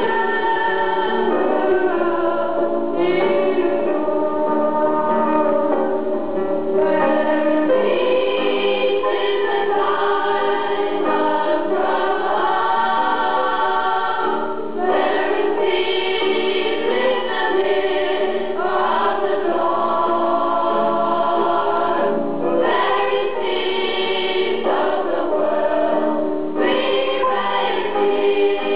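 A choir singing a gospel song in long held phrases, with short pauses between them.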